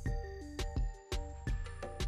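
Background music: an instrumental track with a steady beat about twice a second, a low bass line and a melody moving in short steps.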